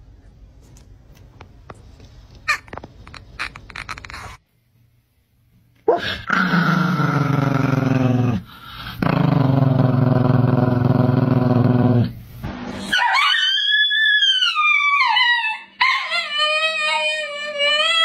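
A man gives two long, low howls at a chihuahua. The dog answers with high-pitched howls that rise and fall.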